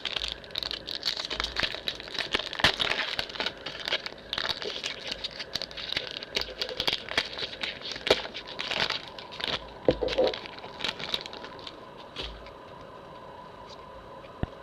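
Foil Pokémon booster pack wrapper being torn open and crinkled: a dense run of crackles and rustles that dies away about two seconds before the end.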